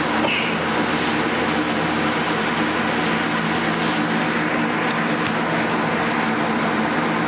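A steady droning rumble: an even rushing noise with several held low tones that do not change, and a few faint brief rustles over it.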